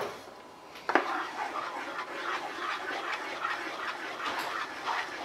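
A wooden spoon knocks once against a frying pan about a second in, then stirs a thin blended tomato sauce, with continuous irregular scraping and sloshing.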